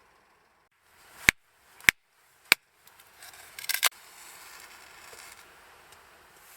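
Three sharp clicks about half a second apart, then a brief burst of crackling clicks, over a faint steady hiss.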